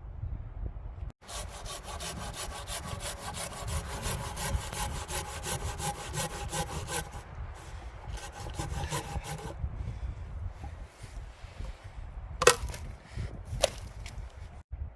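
Hand saw cutting through a log with quick, regular strokes, about five a second, which thin out and stop partway through. Near the end come two sharp knocks of wood, over a low rumble of wind on the microphone.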